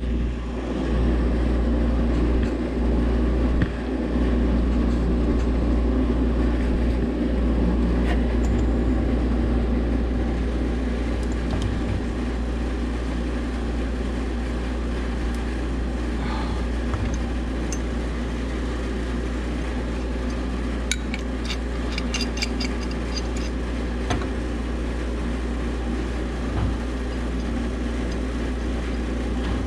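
Steady machinery hum, with a run of light metallic clicks and clinks about two-thirds of the way through.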